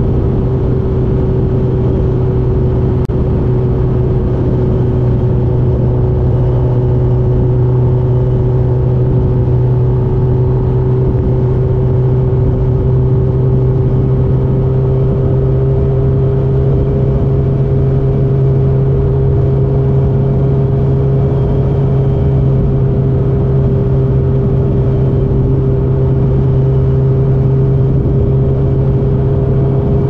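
2006 Suzuki GSX-R1000 K6's inline-four engine through a full Yoshimura carbon-titanium exhaust, cruising at steady revs. The pitch rises slightly about halfway through.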